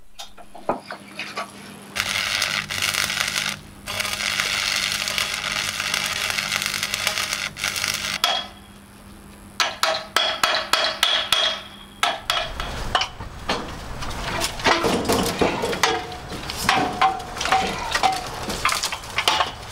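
Electric arc welding on steel hull-support brackets: a steady crackling arc over a low welder hum, in two passes with a short break between them. After that comes an irregular run of sharp knocks and ringing metallic clinks.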